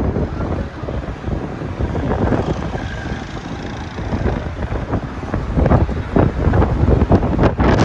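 Vehicle engine and road noise while riding along a busy street, with wind buffeting the microphone.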